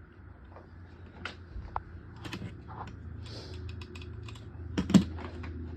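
Scattered light clicks and taps of small hard objects being handled, with one sharper click about five seconds in, over a steady low hum.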